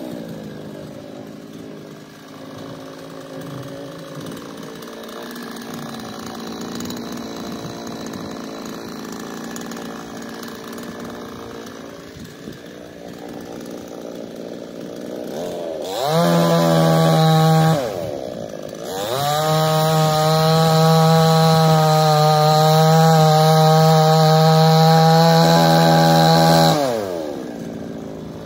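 Gasoline chainsaw idling, then revved to full throttle for a short burst and, after a brief dip, for a longer cut into a log, before dropping back to idle near the end.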